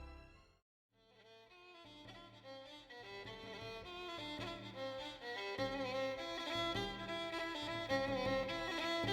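Background music: one piece fades out in the first half second, a short moment of silence follows, then a new piece led by bowed strings fades in and builds.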